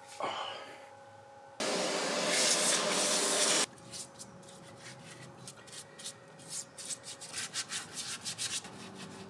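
Stiff brush scrubbing a greasy cast-iron milling-head casting in a solvent washing tub, with quick, irregular back-and-forth strokes in the second half. Before the strokes, a loud, steady hiss lasts about two seconds and then stops suddenly.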